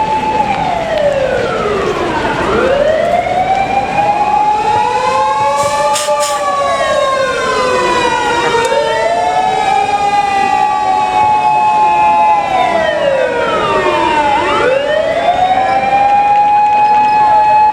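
Several fire-engine sirens wailing together and out of step. Each holds a high tone, slides down over a couple of seconds, then climbs back up, about every six seconds.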